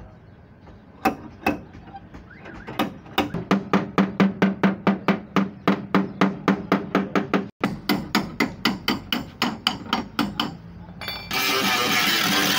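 Metal hammering on car body panel metal, a long run of sharp blows about three a second, each with a short metallic ring. The blows stop near the end, and music comes in.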